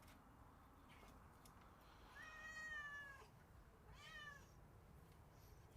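A cat meowing twice: a longer meow of about a second, then a shorter one that rises and falls.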